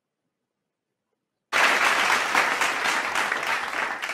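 Applause from many hands clapping, starting suddenly out of silence about a second and a half in and beginning to thin out near the end.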